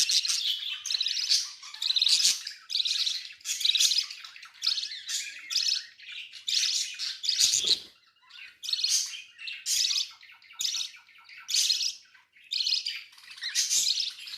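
Baby budgerigar begging for food from adult birds: a steady string of short, high, buzzy cries, roughly one or two a second with brief pauses between.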